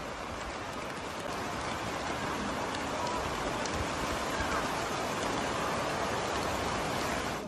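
Steady rain falling, an even hiss that grows a little louder after the first second or so.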